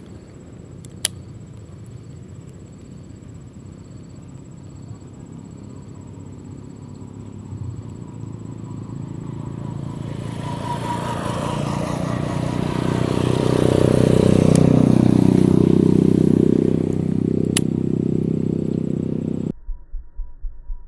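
A motor vehicle passing on the road: its engine grows louder over several seconds, is loudest past the middle with its note falling as it goes by, then fades. Near the end the sound cuts abruptly to music with a pulsing beat.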